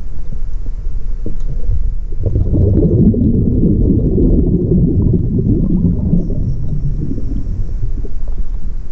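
Underwater, a diver's exhaled breath bubbling out of the regulator: a dense gurgling crackle that starts about two seconds in and lasts about five seconds, over a steady low rumble.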